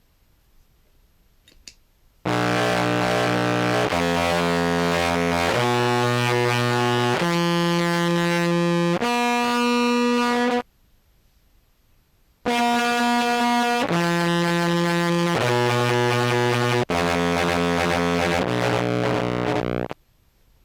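Contrabass clarinet played through a Jackson Audio Modular Fuzz pedal: two short phrases of held, fuzz-distorted notes, about five notes each, with a pause of a couple of seconds between them. The last note wavers.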